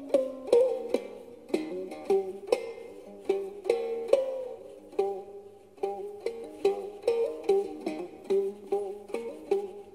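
Khse diev, the Khmer single-string gourd-resonated musical bow, played solo: a melody of plucked notes, a few each second, each ringing briefly, some sliding slightly in pitch.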